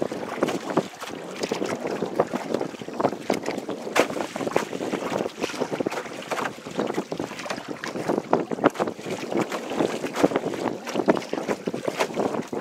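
Small waves lapping and slapping irregularly against the hull of a moving Old Town Saranac 146 canoe, with wind buffeting the microphone.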